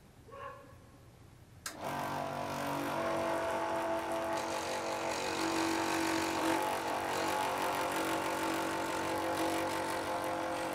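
Dremel electric scroll saw switching on about two seconds in and running steadily, its blade cutting a thin piece of wood.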